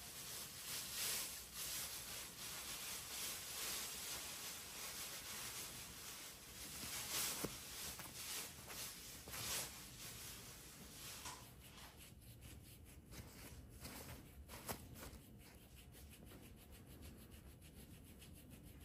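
Faint back-and-forth scrubbing of a chlorhexidine (CHG) foam-sponge applicator against skin: the friction scrub of pre-insertion skin antisepsis. The strokes grow fainter after about ten seconds.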